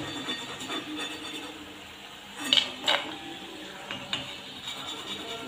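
Perforated metal skimmer clinking and scraping against a metal kadai while fried nimki are lifted out of the oil. Two sharp knocks come about two and a half and three seconds in, with lighter clicks after.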